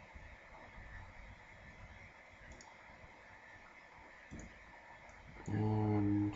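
A few faint computer mouse clicks, scattered, over low background hiss. Near the end, a person hums briefly on one steady pitch for under a second, the loudest sound.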